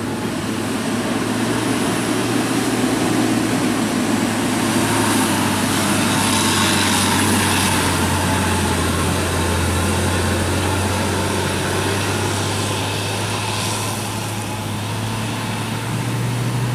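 Heavily loaded Isuzu Giga tandem-axle truck's diesel engine labouring as it climbs through a bend and passes, a steady low drone that is loudest midway and drops a little in pitch as it moves off. Near the end a second truck's engine comes in at a higher note.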